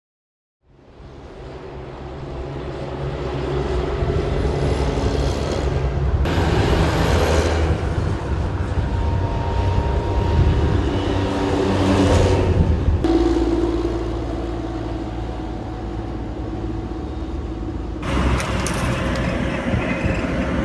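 Engine and road noise of LAV 6.0 eight-wheeled armoured vehicles driving, a steady diesel rumble with tyre noise. The sound changes abruptly about six, thirteen and eighteen seconds in, where clips are cut together.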